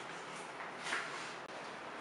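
Steady background hiss of a quiet room, with one soft, brief rustle about a second in.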